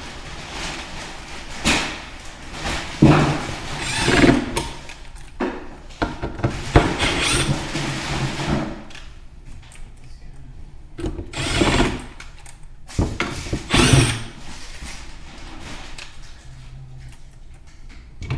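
Cordless drill/driver driving small screws into the soft wood of a drawer box to fix an outlet plate, in about five short spurts with quieter handling between them.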